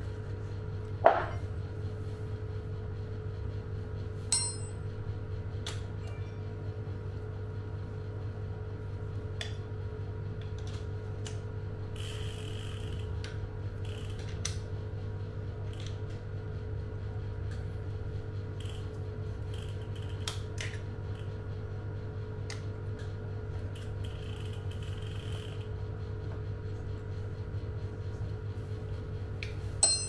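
Allen key clicking and scraping in the bolts of a Shimano Ultegra crank arm, with scattered small metal ticks and a few sharper metallic clinks, the loudest about a second in and ringing ones at about four seconds and near the end, over a steady background hum.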